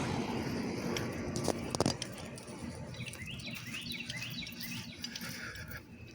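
A bird singing a quick run of short rising chirps about three seconds in, over a steady low rumble, with a couple of sharp knocks just before two seconds.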